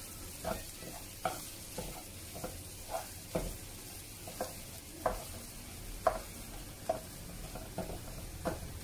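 Wooden spatula stirring and scraping through a thick mashed potato and vegetable masala in a non-stick wok, in repeated strokes about one or two a second.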